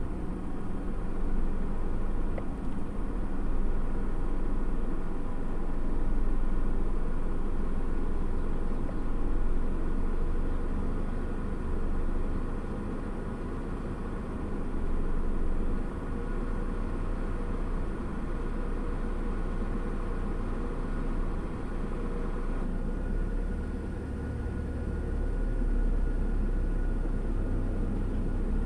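Steady low rumble of an idling vehicle heard from inside its cab, with a steady mid-pitched hum that lessens about 23 seconds in.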